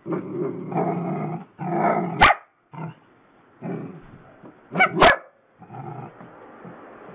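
Small dogs growling, the long rough growl broken by a sharp bark a little over two seconds in and two more close together about five seconds in, then quieter growling.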